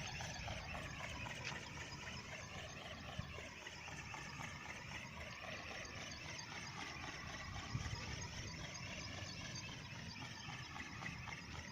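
Faint whine of a flying ornithopter's electric motor and gear drive, its pitch rising and falling in slow sweeps every couple of seconds.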